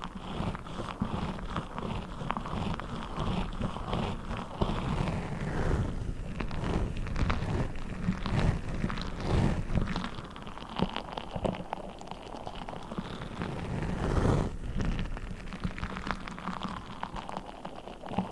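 Hands handling orange orbeez water-gel beads: a continuous wet crackle of many small clicks and squelches, like rain.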